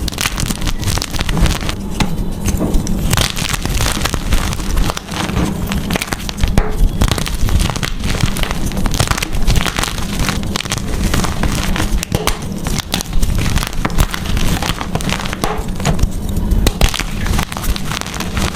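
Blocks of gym chalk being crushed and crumbled, a steady run of dense crunching and crackling.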